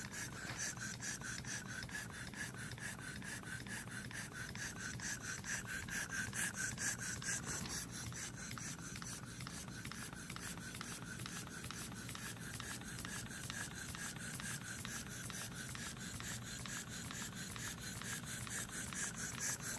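Small four-column reversing model steam engine running steadily on low pressure, about 2.5 to 3 pounds, with a fast, even beat of exhaust puffs and light mechanical rubbing. It is freshly run in and oiled.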